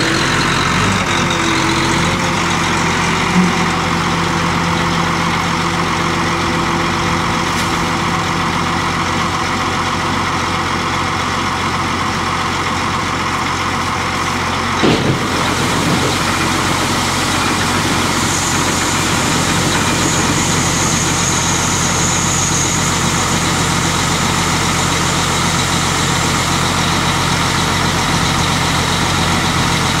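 John Deere tracked tractor's diesel engine running steadily at close range, with a single short knock about halfway through.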